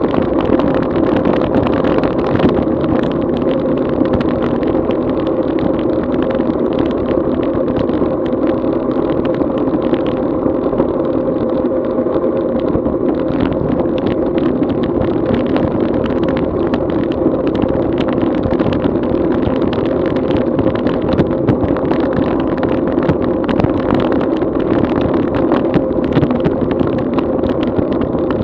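Steady rush of wind and road noise on a bike-mounted action camera's microphone while riding on wet roads in the rain, with a constant drone and frequent small knocks from road vibration.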